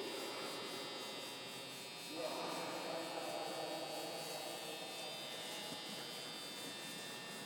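A steady electrical-sounding hum made of several held tones over faint background noise, getting slightly louder about two seconds in.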